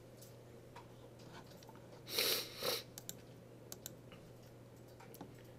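Faint scattered clicks of a computer mouse and keyboard. About two seconds in come two short noisy rustles, half a second apart.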